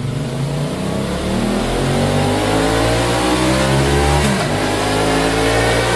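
Benelli Leoncino motorcycle engine through its stock exhaust, revving up with the pitch climbing steadily. About four seconds in the revs dip briefly, then rise again.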